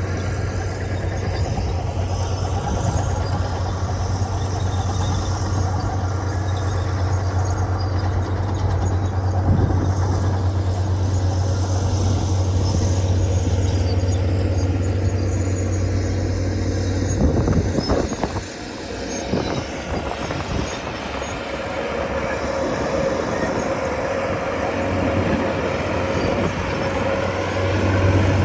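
Komatsu D61EX crawler bulldozers' diesel engines running loud with a steady low drone. About two-thirds of the way through there are a few knocks and the drone drops away for several seconds while a higher steady whine rises. The drone returns near the end.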